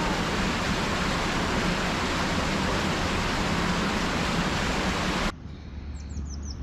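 Loud steady rushing noise that cuts off abruptly about five seconds in. Bird chirps are heard near the end over a low hum.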